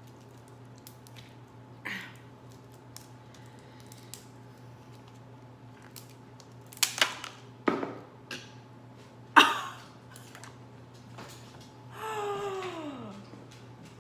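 Sharp clicks and cracks of a hard crab shell being worked open with a shell cracker and scissors, the loudest about seven and nine and a half seconds in. Near the end comes a short vocal sound that falls in pitch, over a steady low hum.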